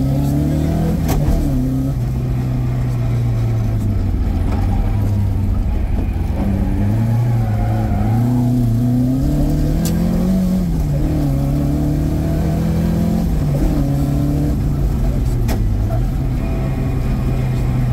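Opel Manta rally car's engine heard from inside the cabin, driven hard along a stage: the pitch climbs under acceleration, drops at each gear change, and eases off and picks up again several times. A few sharp ticks stand out now and then.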